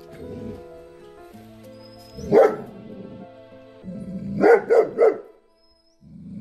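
Saint Bernard barking aggressively: one loud bark, then three in quick succession about two seconds later, over steady background music.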